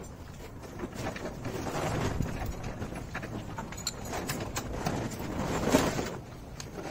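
Irregular metallic clicks and knocks of parts being handled and fitted at a Citroën BE4 gearbox under a car, with one louder knock near the end.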